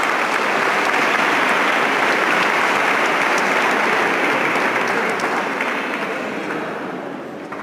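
Audience applauding: a dense spread of clapping that swells in at the start, holds steady, then gradually dies away near the end.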